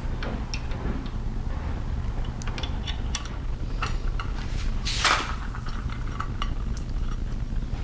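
Scattered light metallic clicks and clinks of hand tools and small parts being handled, with a louder brief scrape about five seconds in, over a steady low hum.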